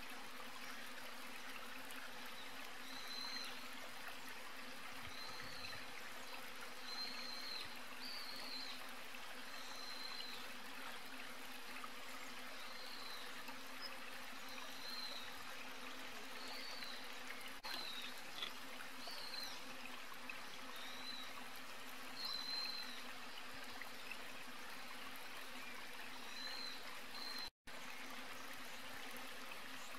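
Outdoor nature ambience: a steady hiss with a low hum, and a short high chirp repeating every second or two. The sound drops out for an instant near the end.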